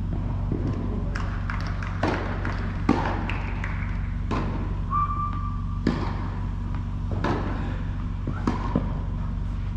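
Tennis balls being hit and bounced: a scatter of sharp, irregular impacts echoing through a large indoor tennis hall, over a steady low hum.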